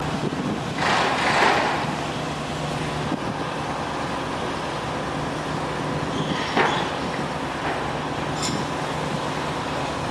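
Steady engine drone of construction-site machinery, with louder rushing swells about a second in and again past six seconds, and a short sharp clank near the end.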